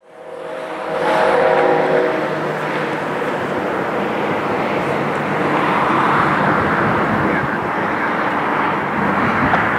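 Distant freight train's Nathan K5HL five-chime air horn sounding as the sound fades in, a steady chord that stops about two seconds in. The approaching train's noise then runs on steadily.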